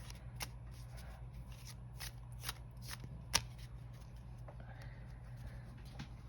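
Tarot cards being handled and shuffled: a string of light, irregular card snaps and slides, the sharpest snap about three and a half seconds in.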